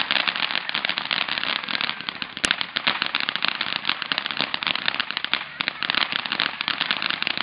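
Ground fountain firework spraying sparks with a dense, continuous crackling. One sharper pop comes about two and a half seconds in.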